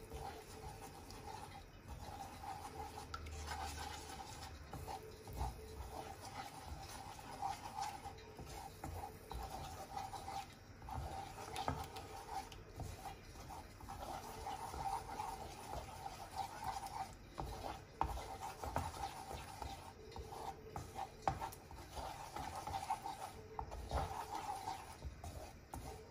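A wooden spatula stirs and scrapes a thick cornmeal mixture around a granite-coated frying pan. It makes a continuous rasping rub, broken by irregular clicks and knocks of the spatula against the pan.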